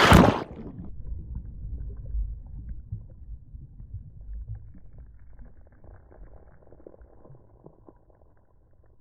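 Surf and wind noise cut off abruptly just after the start as the recording sinks under shallow seawater. What follows is a muffled underwater rumble with faint gurgling and crackles, fading steadily.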